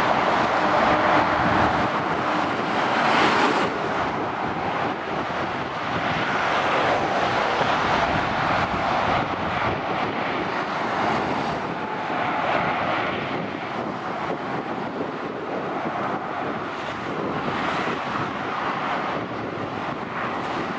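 Motorway traffic heard from a bridge above the road: lorries and cars passing below in a steady rush of tyre and engine noise that swells and fades as each vehicle goes by, with some wind on the microphone. The sound changes abruptly about three and a half seconds in.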